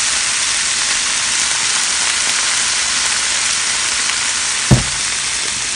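Corn kernels sizzling steadily as they fry in a hot frying pan, with a single sharp knock near the end.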